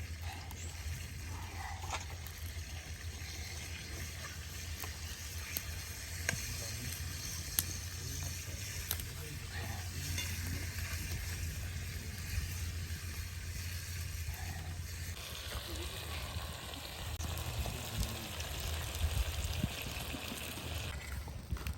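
Food sizzling as it fries in a pan: a steady hiss with scattered small pops and clicks, growing a little louder about two-thirds of the way through.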